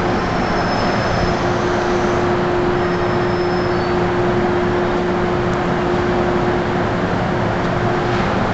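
MTR M-Train electric metro train running through an underground station platform without stopping, heard behind the platform screen doors: a steady rumble of wheels on rail with a steady motor hum running under it.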